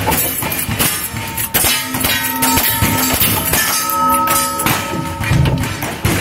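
Rapid, irregular gunfire from cowboy action firearms shooting at steel targets, with the steel plates ringing after hits.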